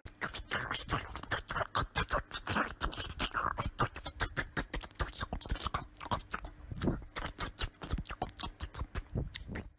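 Small dog scrabbling its claws against a wooden door: a quick, uneven run of scratches and taps.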